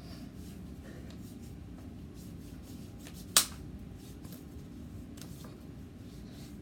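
A single sharp click about halfway through, over a steady low background hum.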